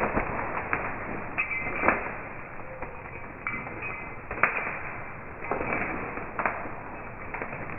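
A black Labrador running through woodland undergrowth, its paws snapping twigs and crunching leaves in a string of sharp cracks. The audio is slowed down eight times, so the cracks are drawn out.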